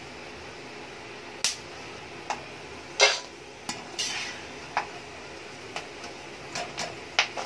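Steel slotted spatula scraping and knocking against an iron kadhai while roasted almonds and pumpkin seeds are scooped out and tipped into a stainless steel bowl. About ten sharp, uneven clinks, a few of them ringing on briefly, over a faint steady hiss.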